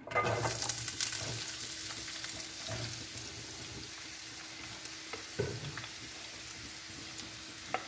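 Sliced onions tipped into hot coconut oil in a pan, sizzling as they hit the oil. The sizzle starts suddenly, is loudest at first and eases off gradually into a steady frying hiss, with a couple of light knocks.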